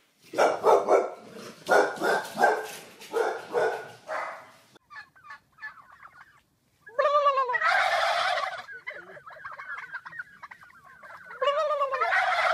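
A flock of domestic turkeys gobbling in chorus. First comes a run of short rattling gobbles, then two longer loud bursts of many birds gobbling at once, about seven seconds in and near the end.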